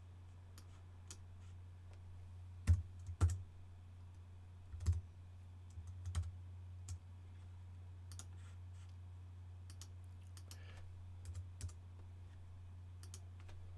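Scattered computer keyboard key presses and clicks, irregular and a second or two apart, over a steady low hum.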